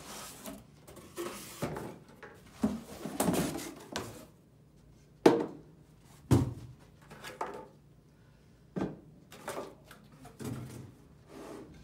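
Cardboard box flaps and packing rustling while an aluminum vacuum chamber pot is lifted out and set on a table, with scattered knocks and two sharp knocks about five and six seconds in.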